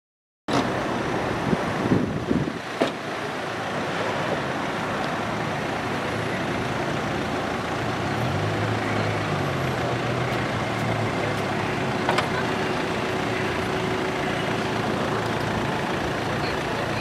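Street traffic: the steady noise of cars running along the road, with a few sharp knocks about two to three seconds in and a low engine hum standing out about eight to ten seconds in.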